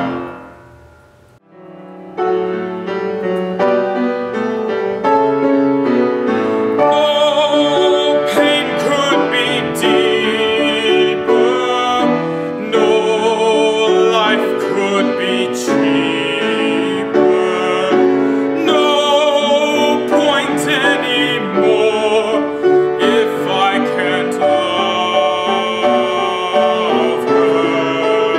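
Recorded piano accompaniment that fades out, then starts again about two seconds in, with a man's voice singing over it in a classical style, with strong vibrato.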